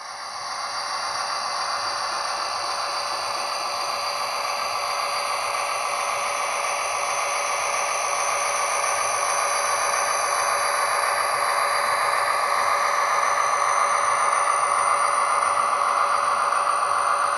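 HO scale model train running along the track: a steady whir from the locomotive's motor and its wheels rolling on the rails, growing slowly louder as it passes.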